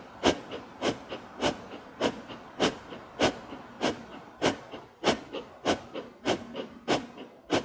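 Breath of fire: a woman's rapid, forceful breathing, each exhale driven by a sharp inward pull of the belly, coming as short hisses of breath just under two a second in an even rhythm.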